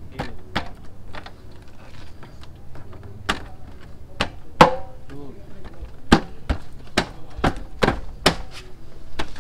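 Plastic fairing panels of a Honda CBR150R being pressed, tapped and snapped back into place by hand: a string of irregular sharp clicks and knocks, denser and louder in the second half.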